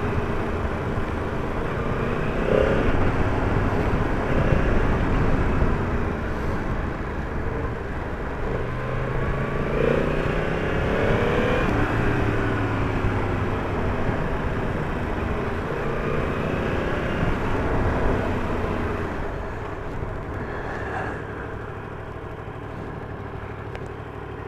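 Yamaha MT-10's inline-four engine running under way, its pitch climbing and dropping several times with the throttle, and easing off in the last few seconds.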